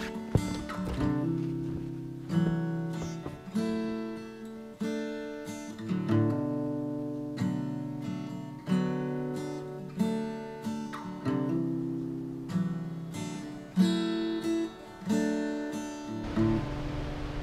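Background music: acoustic guitar playing a slow plucked melody, each note ringing out and fading before the next. A steady hiss comes up under the guitar near the end.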